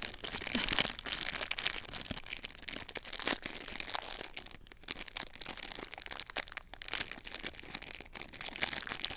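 Crinkling and rustling of a sealed foil toy blind bag as hands pull and twist at it, trying to tear it open, with irregular crackles and a few sharper snaps. The bag is tightly sealed and hard to open.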